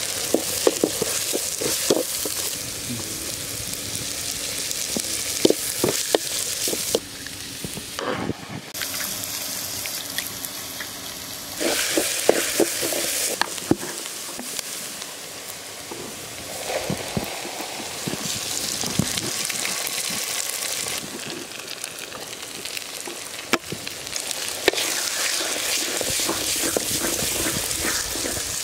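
Chopped capsicum, onion and grated carrot sizzling in hot oil in a metal pan, with short knocks and scrapes of a wooden spatula stirring against the pan. The sizzle gets louder and softer in a few stretches.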